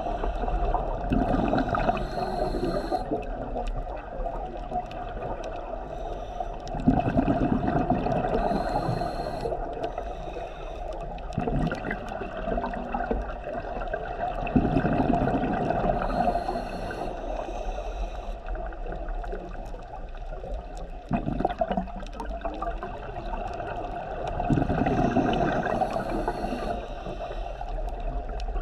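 Scuba diver's regulator breathing underwater: about four breaths, each a short hissing inhalation through the demand valve followed by a low gurgling rush of exhaled bubbles, one breath every seven to eight seconds.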